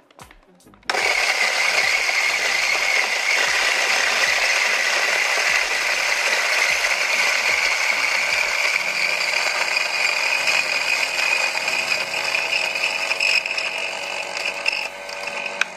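Electric burr coffee grinder grinding coffee beans at a coarse setting. It starts suddenly about a second in, runs steadily, and stops just before the end.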